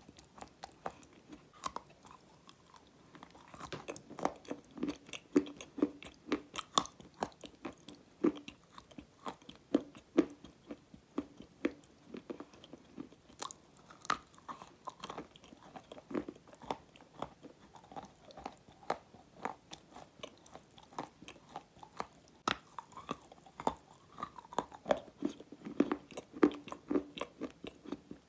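Close-miked biting and chewing of a hard, crumbly grey chunk: a steady stream of sharp crunches and crackles as it breaks between the teeth, with a few louder cracks.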